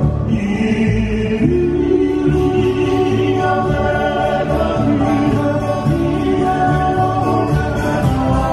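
A Hawaiian trio singing in close harmony, with sustained held notes over electric bass, strummed acoustic guitar and ukulele, amplified through speakers.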